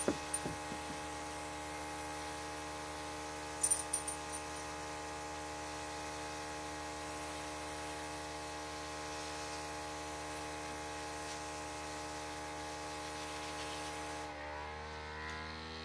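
Small airbrush compressor running with a steady hum, under a faint hiss of air. A few light clicks come just after the start and again about four seconds in. Near the end the hiss stops for a moment and the hum's pitch shifts.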